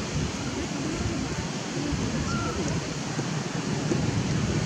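Steady outdoor background noise, a low rushing like wind on the microphone, with faint distant human voices mixed in.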